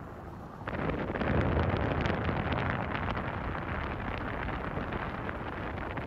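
Wind rushing over the phone's microphone: a rough noise that starts suddenly about a second in and keeps going.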